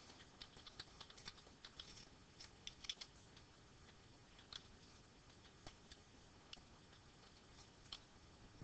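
Faint computer keyboard typing: irregular keystroke clicks, a quick run in the first three seconds, then scattered single keys.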